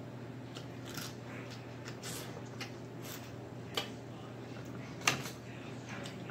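Blue crab shell being cracked and picked apart by hand while eating, with scattered small crunches and wet clicks; a sharp crack about five seconds in is the loudest. A low steady hum runs underneath.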